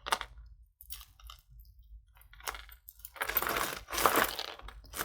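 Jewelry being handled: scattered light clicks and clinks, then a busier stretch of clicking and rustling in the last two seconds.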